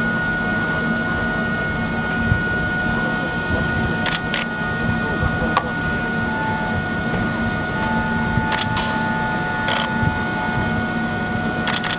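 Diesel passenger train standing at the platform with its engines idling: a steady low hum under a steady high whine, with the murmur of passengers' voices and a few sharp clicks and knocks.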